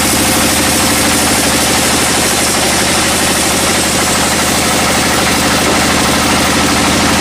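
A sawmill's engine running steadily at a constant speed, with a fast, even low pulse.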